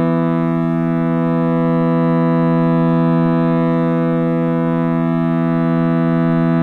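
Meditative drone music: a chord of several steady low tones held without change.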